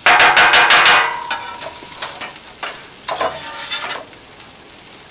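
Metal spatula scraping and clattering quickly against the steel top of a Blackstone griddle for about a second, then a few more scrapes around three seconds in. Underneath is the steady sizzle of onion, garlic and chili peppers frying in oil.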